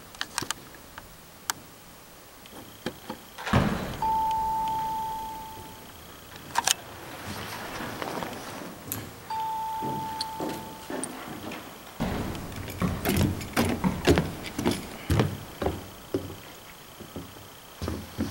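Ice-tool picks and crampon points clicking, knocking and scraping on a dry-tooling wall's holds and panels, with a heavy thump about three and a half seconds in. The clicks grow busier over the last third. Two long, steady beeps, about two seconds each, come a few seconds apart.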